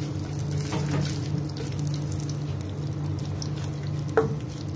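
Whole spices (cumin seeds, bay leaves, cinnamon and cloves) sizzling in hot oil in a non-stick pan as a wooden spatula stirs them, over a steady low hum. A sharp click comes about four seconds in.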